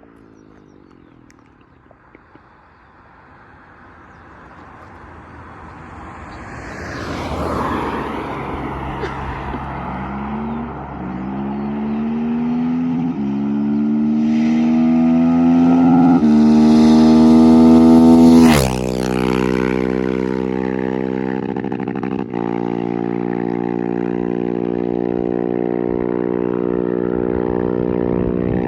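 KTM 690 SMC R single-cylinder engine through an open FMF exhaust with no catalytic converter or dB-killer: it grows louder over several seconds, its pitch climbing, drops off sharply about two-thirds in, then runs steadily.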